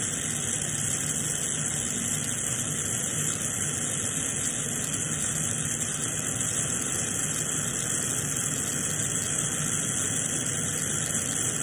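Glassworking bench torch flame burning with a steady, even hiss while borosilicate glass is heated in it.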